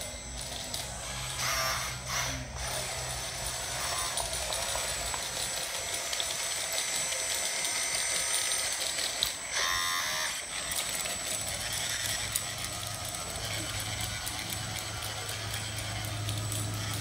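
Radio-controlled Caterpillar D8 bulldozer model driving, its electric drive motors whining and metal tracks clattering, with a low steady hum in the first few seconds and again over the last third.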